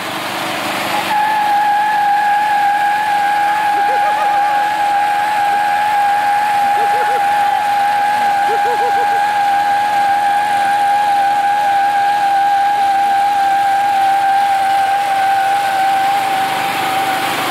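Toro riding lawn mower's engine running hard while the mower is chained in place for a bleach burnout. A steady high-pitched whine sets in abruptly about a second in and holds almost unchanged.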